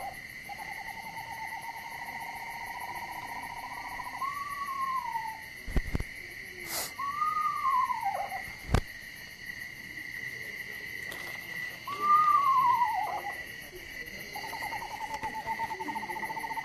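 Recording of an eastern screech-owl played through a loudspeaker. Short descending whinnies alternate with long, even trills held on one pitch, over a steady high background tone.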